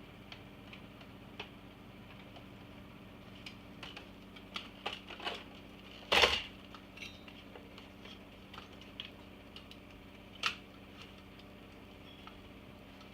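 Small hard clicks and clatter of tools, screws and plastic parts being handled while taking apart an iMac G3, with a loud knock about six seconds in and a second sharp knock a few seconds later.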